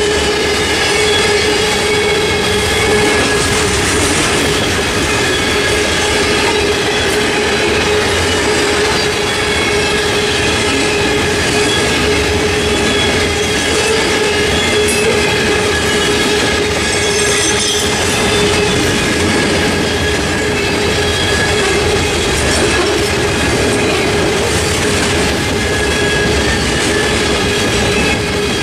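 Loaded covered hopper cars of a freight train rolling steadily past, their wheels clattering on the rails, with a steady ringing tone through the noise.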